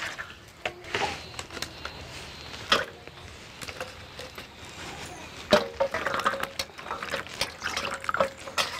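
Snake gourds being washed by hand in a steel bowl of water: water poured in from a steel mug, then splashing and sloshing as the gourds are dropped in and rubbed. Several sharp knocks of gourds and hands against the metal bowl, the loudest about five and a half seconds in, some leaving a brief ring.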